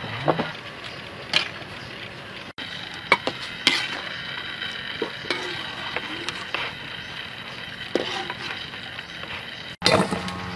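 Octopus being handled in a metal cooking pot: a steady hiss with scattered clinks and knocks of a utensil against the metal, the loudest knock near the end.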